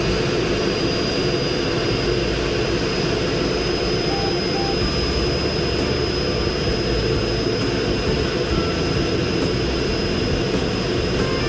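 MiG-15UTI jet trainer in flight, heard from a camera mounted on its tail: a steady, unbroken rush of jet engine and airflow noise with a thin, high, constant whine above it.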